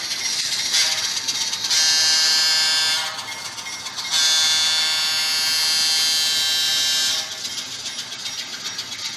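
Diesel locomotive horn sounding twice, first a blast of a bit over a second, then a longer one of about three seconds, each starting and stopping abruptly.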